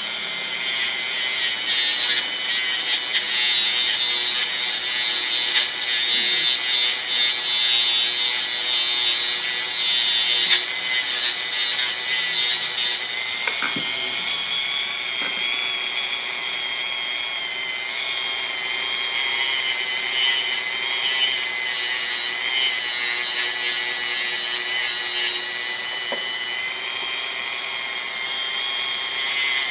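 Dremel rotary tool running at high speed with a steady high-pitched whine as it cleans up the top of a small nut. Its pitch wavers a few times, around halfway through and again later.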